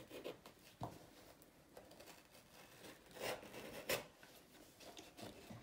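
Utility knife cutting through the stiff, crispy dried edge of a tanned sheepskin: faint scratchy slicing with a few sharp clicks.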